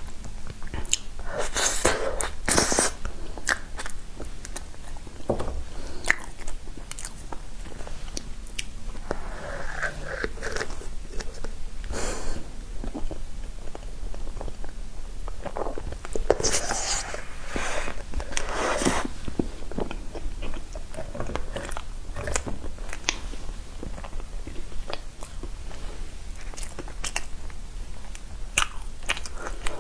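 Mouth sounds of a person eating soft layered push-pop cake: bites and chewing, with scattered sharp clicks.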